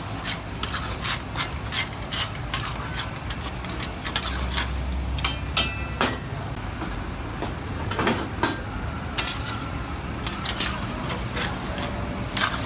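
A long metal ladle and tongs clinking and scraping against a large metal karahi as chunks of lamb are stirred and turned, with irregular sharp clinks over a low steady hum.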